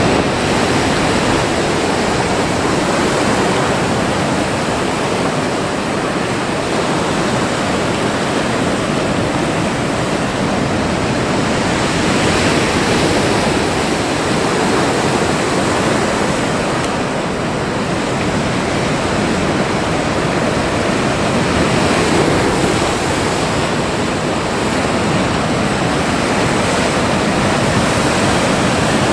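Ocean surf breaking and washing against a concrete harbour jetty: a loud, steady rush that swells a little louder now and then as waves break.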